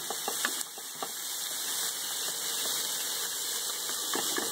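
Fish and vegetable stir-fry sizzling in a nonstick frying pan, a steady hiss from a little water just added to the hot pan to keep the curry from burning, with a few light clicks from the wooden spatula against the pan in the first second or so.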